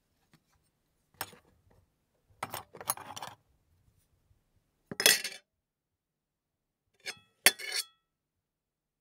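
Metal fork and spoon clinking and scraping against a plate as mock eating sounds, in short separate bouts: about a second in, around three seconds, at five seconds, and twice near seven and a half seconds. The last bouts leave a brief metallic ring.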